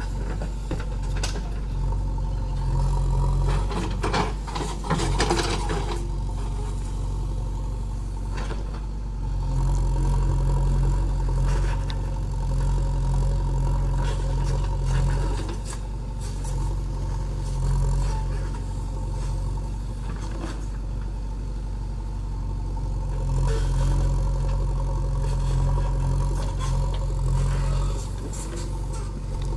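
JCB 3DX backhoe loader's diesel engine running under working load, its note swelling and easing. A burst of clattering knocks comes about four to six seconds in.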